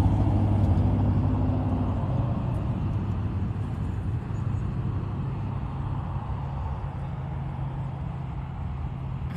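A motor vehicle's engine running with a low, steady hum, loud at first and fading gradually over several seconds as it moves away.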